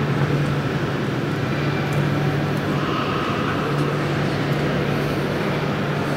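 Large railway turntable turning: a steady mechanical hum over a constant rumbling noise.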